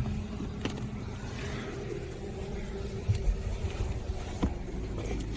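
Rustling and a few soft knocks as a person climbs into a pickup's rear seat and settles in, over a steady low rumble.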